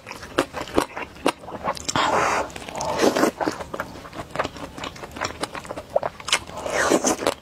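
Close-miked eating sounds: wet chewing with many sharp mouth clicks and smacks, and noodles being slurped in a couple of longer draws, about two seconds in and again near the end.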